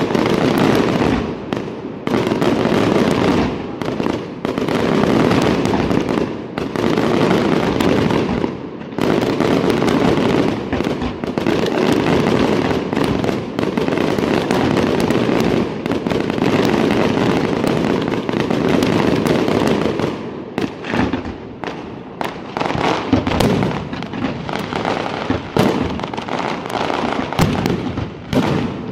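Fireworks display in a dense, continuous barrage: aerial shells bursting and crackling almost without pause, breaking up into more separate bangs with short gaps about two-thirds of the way in.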